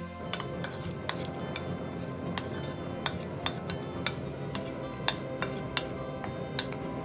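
A wooden spoon stirring mushrooms in broth, knocking against the side of the pot in a dozen or so sharp, irregular clicks.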